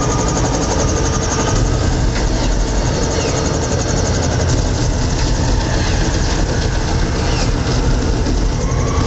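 A helicopter and a car running together in a loud, steady deep rumble, with a fast, even chopping in the upper hiss.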